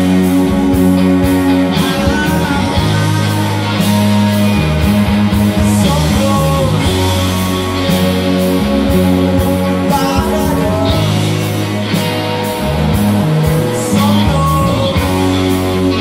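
Rock band playing live: electric guitar chords over bass and a steady drum beat with cymbals, and a man singing at a few points.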